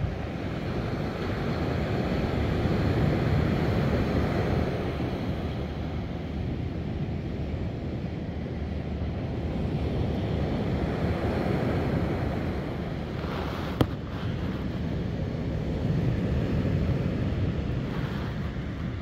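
Surf breaking on a beach, swelling and easing every six or seven seconds, with wind buffeting the microphone. A single sharp click about fourteen seconds in.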